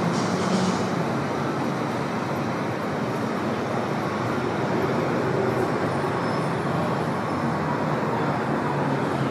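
Steady, even rushing background noise of a large indoor hall, with no distinct events.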